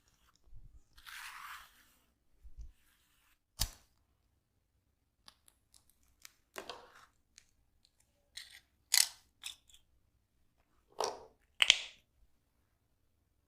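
Hands rubbing and scrunching hair against the scalp during a head massage: a series of short scratchy rustles, with a single sharp click about three and a half seconds in.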